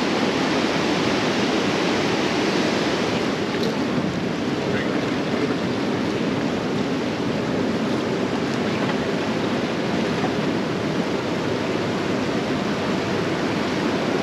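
Steady rushing noise of fast river current around the boat, mixed with wind buffeting the microphone.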